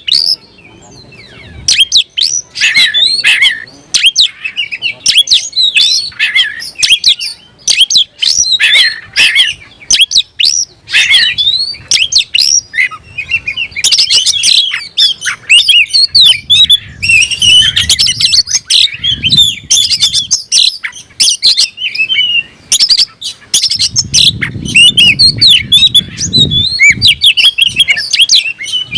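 Oriental magpie-robin singing a rapid, varied, nearly unbroken string of whistles, chirps and harsh notes, after a brief pause at the start. This is a territorial song aimed at a rival.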